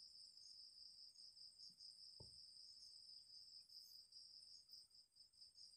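Near silence: a faint, steady, high-pitched pulsing chirr, with one soft low knock about two seconds in.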